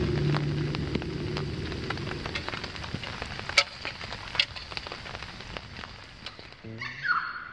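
Wood campfire crackling and popping, with two sharper pops about halfway through, gradually fading away. A bird call comes in near the end.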